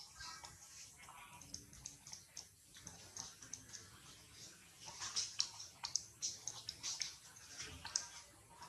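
Quick, irregular soft clicks and smacks from a macaque mother and infant at close range, busier and louder in the second half.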